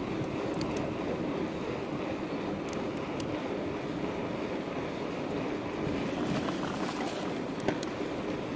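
Wind rushing over the microphone of a mountain bike moving along on asphalt, with the steady rolling noise of its tyres. A few short clicks come from the bike, the sharpest near the end.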